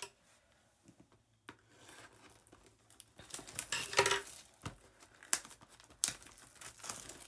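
Plastic shrink-wrap on a sealed trading-card box being torn open and crumpled. The crinkling comes in irregular bursts with a few sharp snaps, after a quiet first second or so.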